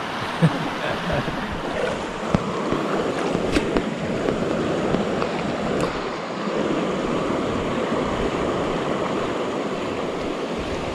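Fast, shallow river current rushing over rocks, a steady wash of water, with a few sharp clicks in the first half.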